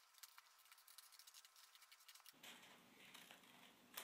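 Faint snipping and paper rustling from scissors cutting through a card file folder covered with glued magazine strips, with one sharper click near the end.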